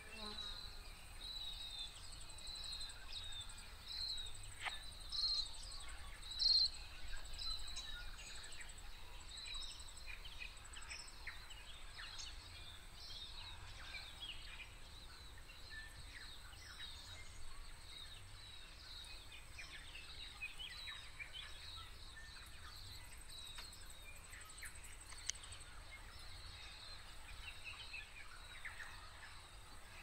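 Small birds calling. For about the first ten seconds there is a run of short high chirps repeated roughly once a second; after that come scattered soft chirps and twitters. All of it lies over a steady high insect trill.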